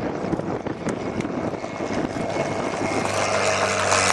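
Supermarine Spitfire's V12 piston engine throttled back on the landing approach. A low, steady drone grows louder from about three seconds in as the aircraft passes close, with wind buffeting the microphone.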